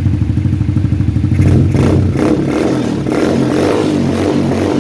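A 150cc Sankawa ATV engine idling through its twin chrome sport mufflers, then revved with the throttle from about a second and a half in, running up and down unevenly.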